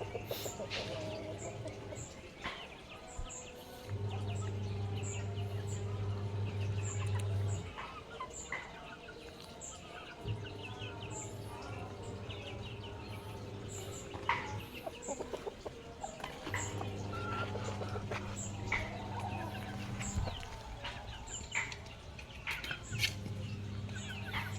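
Chickens clucking and young chicks peeping in many short high calls, over a low steady hum that starts and stops several times.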